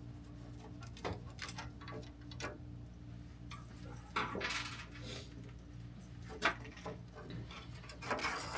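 Small metal clicks and clinks of screws and table-saw parts being handled while sawdust and wood debris are cleared out, with a brief scraping rustle about four seconds in and another near the end. A low steady hum runs underneath.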